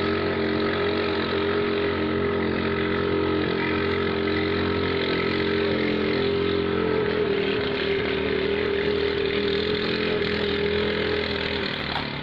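Small petrol boat engine running hard at high revs, a steady buzzing drone that eases off about eleven seconds in.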